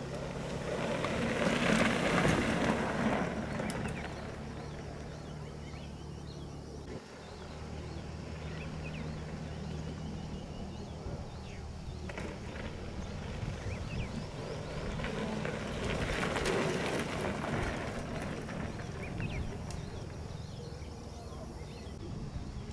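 A steady low engine hum, with louder noise swelling up twice: around two seconds in and again around sixteen seconds in.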